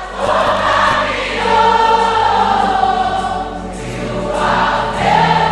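A congregation singing together over a gospel worship accompaniment of sustained keyboard chords, with long held notes.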